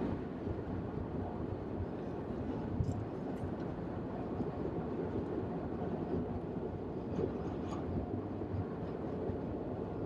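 Steady road and engine noise inside the cabin of a moving car.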